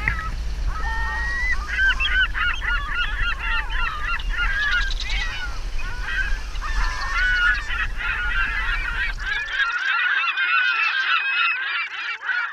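A dense flock of birds honking and calling over one another in many short, overlapping calls, with a low rumble underneath that stops suddenly about three-quarters of the way through.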